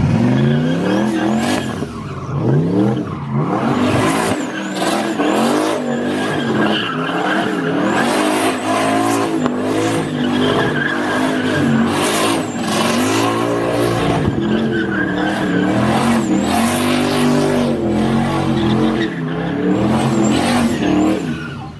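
Turbocharged 1967 Chevelle's engine revving hard in repeated rises and falls during a burnout, its rear tyres spinning and squealing on the asphalt. A high turbo whistle rides over the engine.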